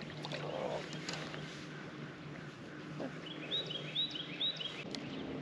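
A bird calling a quick run of short, high chirps for about a second and a half, starting about three seconds in.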